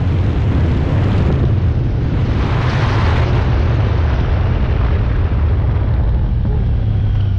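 Side-by-side off-road vehicle running, with a heavy rumble and rushing noise, swelling briefly about three seconds in.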